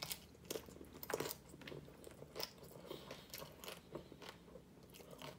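Mouthful of crisp hard-shell corn taco being chewed: a run of small, irregular crunches, about two a second.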